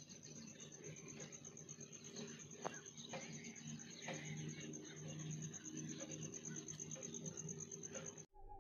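Faint, steady high-pitched insect trill, cricket-like, with a low hum underneath and a few faint clicks; it cuts off abruptly near the end.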